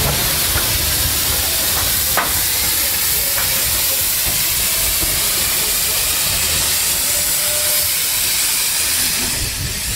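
Steady, loud hiss of steam from a Peckett 0-4-0 saddle tank steam locomotive running slowly in, with a few faint clicks about two seconds in.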